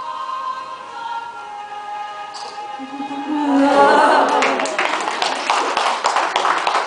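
A choir sings the last phrase of a Marian hymn and ends on a held note. About halfway through, the audience breaks into steady applause.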